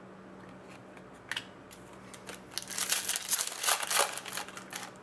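Foil trading-card pack wrapper crinkling as it is torn open and handled: a single sharp crackle about a second in, then a dense stretch of crinkling.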